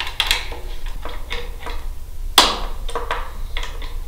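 Irregular sharp clicks and taps of a hand tool working the nuts on a radio's mounting bracket as they are tightened, with one louder knock a little past halfway.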